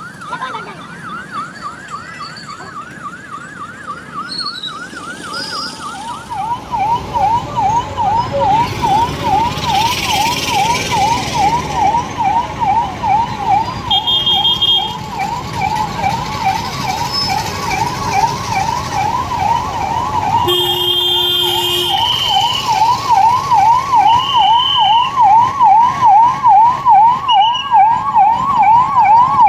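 Police vehicle sirens in a fast, repeating up-and-down yelp. One siren sounds at first; about six seconds in, a louder, lower-pitched siren takes over and keeps getting louder toward the end.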